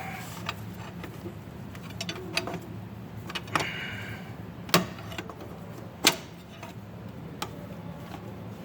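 Prying tool working at a stuck EGR valve: scattered sharp metal clicks and knocks, the two loudest about five and six seconds in, with a short scrape just before them. A steady low hum runs underneath.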